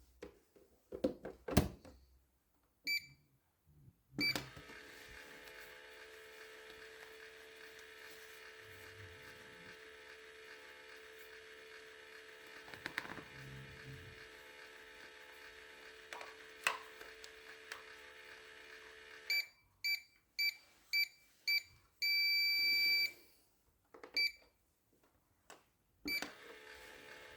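Toy microwave: a few button clicks, then a steady electronic hum for about fifteen seconds that stops abruptly. Then a string of short beeps and one longer beep, and near the end the hum starts again.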